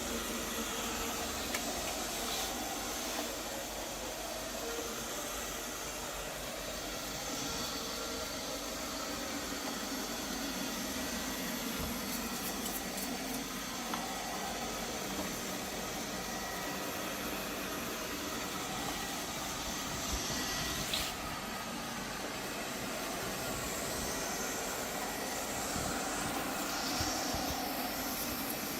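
OKP Life K2 robot vacuum cleaner running, its suction motor and brushes giving a steady whirring hiss.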